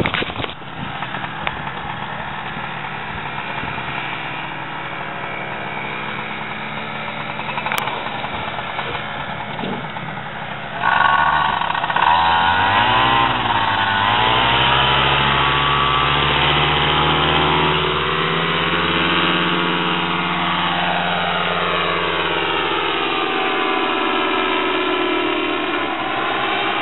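Paramotor engine idling, then throttled up sharply about eleven seconds in, its revs wavering and rising before holding steady at full power for the takeoff run and climb; its pitch sinks slowly near the end.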